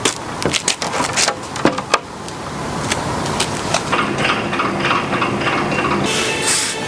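Wooden boards knocking and clacking together as they are handled. From about two seconds in, woodworking machinery runs with a steady, noisy hum that grows slightly louder.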